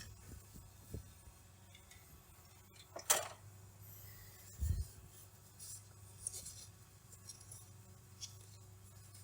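Faint rubbing and rustling of a paper towel wiping out a diesel fuel filter bowl, with one sharper swish about three seconds in and a dull low knock a little later, over a steady low hum.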